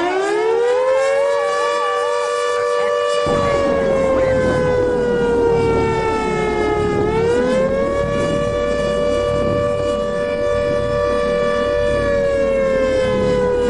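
Outdoor civil-defense warning siren sounding a two-tone chord. It winds up in pitch at the start, then holds a steady wail that sags in pitch about halfway and climbs back up. A warbling tone overlaps the first two seconds, and a rushing low noise joins about three seconds in.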